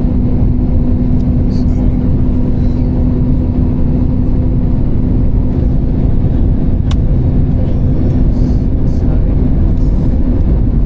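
Steady, loud cabin drone of an airliner: a low rumble with a constant hum running through it.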